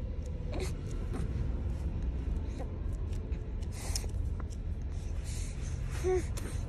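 Baby drinking from a bottle, with faint sucking and swallowing clicks and a short little vocal sound near the end, over a steady low car-cabin rumble.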